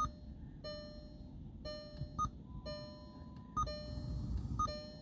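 Speaker-polarity test track ticking through the car's speakers from the newly installed JVC head unit, a sharp tick roughly once a second, each followed by a short beep. This is the signal used to check that each speaker is wired in phase.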